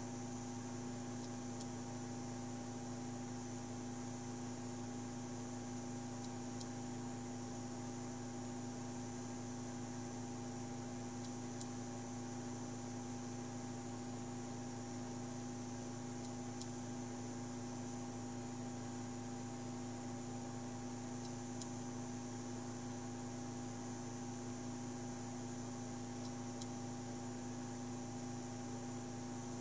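Two stepper motors driven at 2 A RMS on a slow move, with a small 40 mm cooling fan, giving a steady hum of several fixed tones. A faint tick comes about every five seconds.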